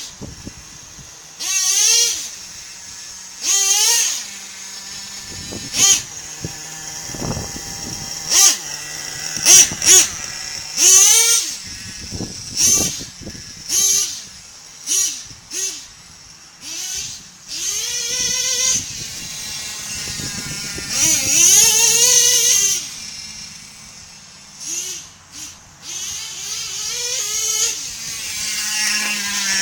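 Nitro engine of a radio-controlled monster truck revving again and again in short bursts. Each burst is a whine that rises and falls in pitch, and the engine drops back to a lower idle between bursts.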